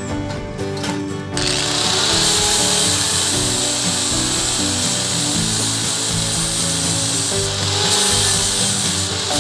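A power tool starts about a second in and runs steadily with a rough, hissing noise, over background music.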